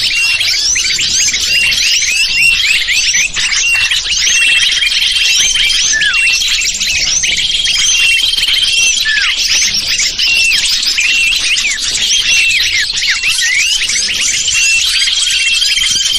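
Dense chorus of many small birds chirping and twittering, with quick falling notes and now and then a short held whistle. It is a bird-lure recording used to draw wild small birds in.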